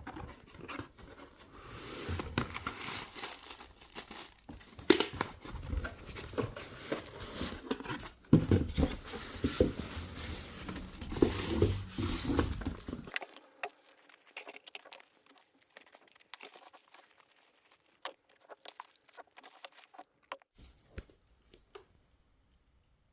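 Speaker packaging being handled during an unboxing: irregular crinkling, rustling and tearing with scattered knocks. The sound thins to faint clicks after about 13 seconds and dies away near the end.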